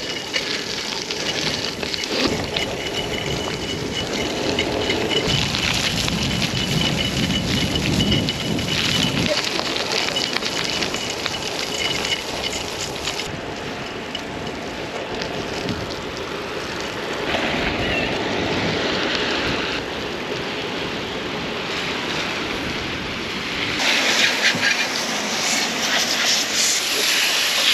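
Riding a road bicycle in the rain: wind buffeting the microphone over the hiss of tyres on a wet road. A faint high steady whine shows for several seconds in the first half.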